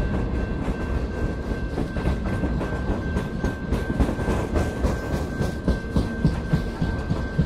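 Freight train of loaded flatcars rolling past, a steady low rumble with the wheels clicking and knocking over the rail joints and a few louder clacks near the end. A thin steady high tone runs underneath.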